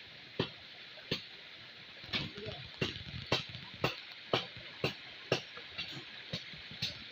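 Bolo knife chopping at wood or stems in a steady rhythm of about two sharp strikes a second, over a steady background hiss.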